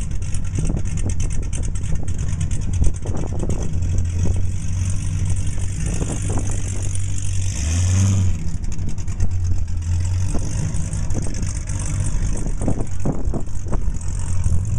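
Cadillac CTS-V's supercharged 6.2-litre V8 exhaust running with a deep, steady note as the car creeps along, with one short rev about eight seconds in.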